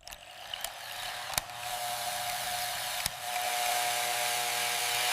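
Mini chainsaw running, its small motor and chain giving a steady high whine that grows gradually louder, with a few light clicks.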